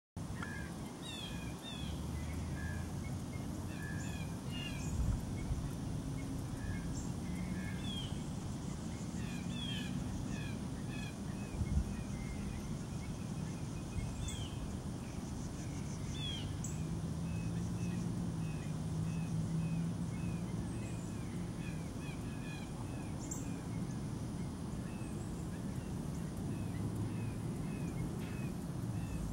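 Birds chirping and calling in many short, repeated notes, some sweeping downward, over a steady low background rumble.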